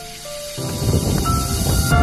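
Background music: sustained notes, then about half a second in a loud, dense low rumble enters with a hissing swell building toward the end.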